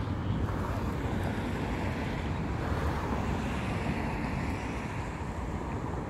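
Wind rumbling on a phone's microphone: a steady low rush of noise.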